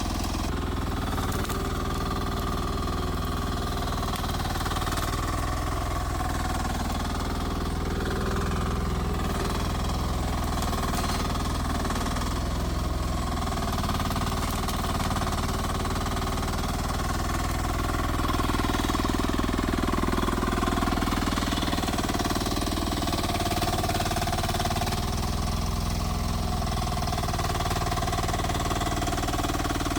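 Rippa R10 mini excavator's small engine running steadily while working, its note swelling slightly about two-thirds of the way through.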